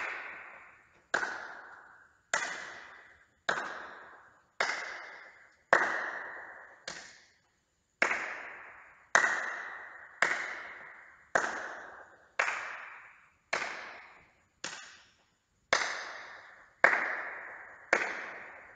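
Sharp hand claps about once a second, one per toss of a small ball in a toss-clap-catch drill, each ringing out in the echo of a large sports hall.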